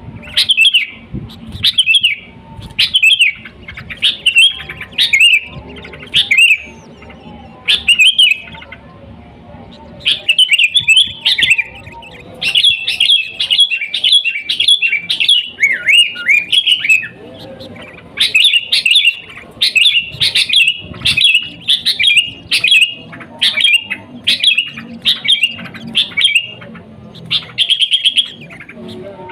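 Sooty-headed bulbul (kutilang) singing: short, bright chirping phrases repeated about once a second, coming in a dense run in the middle, with a brief lull about nine seconds in.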